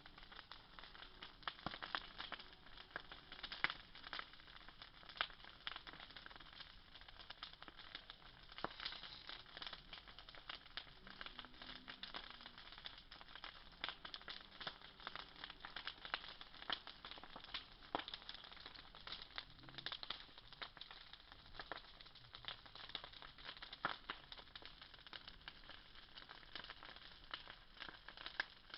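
Large bonfire crackling: many irregular sharp pops and snaps over a steady hiss.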